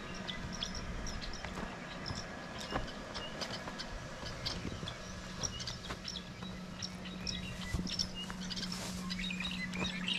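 Many small birds chirping, in quick short calls scattered throughout, over a steady low hum.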